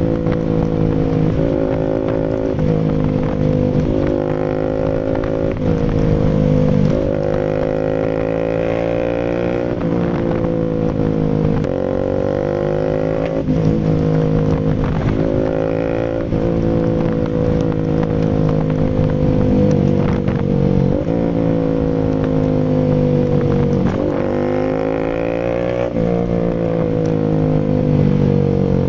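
Rouser RS200's single-cylinder engine running through an SC Project full aftermarket exhaust. Its note climbs over a few seconds and then drops sharply, again and again.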